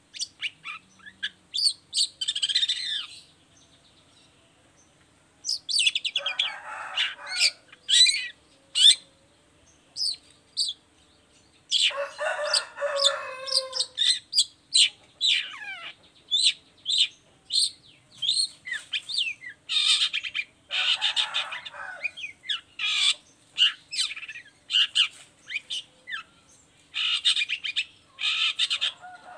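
Long-tailed shrike singing a busy run of sharp, quick whistled notes and short chirps, broken three times by harsh rasping stretches that each last a second or two.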